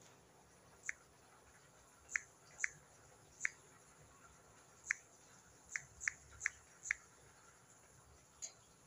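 Smartphone on-screen keyboard clicks as an email address is typed: about ten short, faint clicks at uneven intervals, several coming in quick succession.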